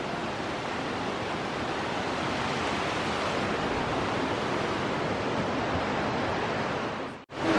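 Steady, unbroken rush of flowing spring water.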